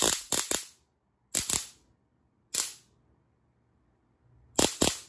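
Spark gap of a homemade high-voltage EMP pulse generator firing: sharp snapping cracks in four short bursts, each of one to a few snaps, with a longer pause before the last. Each snap is a high-voltage discharge across the gap, which sends the pulse into the coil.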